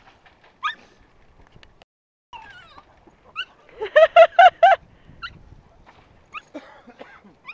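A puppy whining in short high squeaks, with a quick run of four loud yips about four seconds in.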